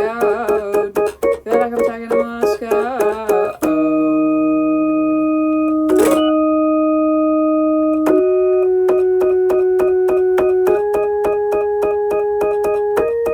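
Electronic keyboard music: quick staccato notes, then a long held note that steps up in pitch three times while rapid repeated notes run over it. A short burst of noise cuts through about six seconds in.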